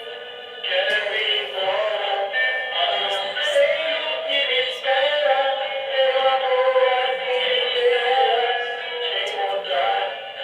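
Music with a sung voice.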